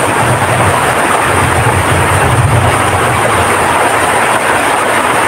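Heavy rain pouring steadily, with strong wind gusting.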